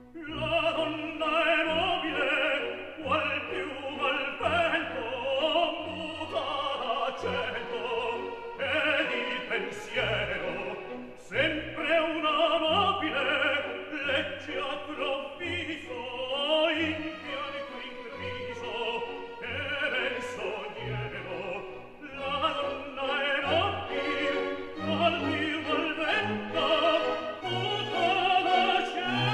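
Operatic singing with vibrato over orchestral accompaniment.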